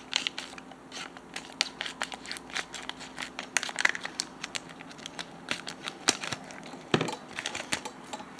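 Clear plastic packaging bag crinkling and crackling irregularly as it is handled and opened, with a louder snap about seven seconds in.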